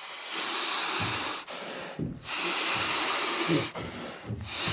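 Bedding being pulled out and handled on a bunk: fabric rustling and rubbing in three long strokes with short pauses between.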